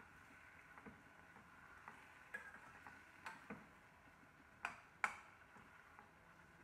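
Slotted metal spoon clicking and scraping against a stainless steel pot while stirring chunks of eggplant in a thick sauce: irregular sharp clicks every second or so, the loudest about five seconds in, over a faint steady hiss.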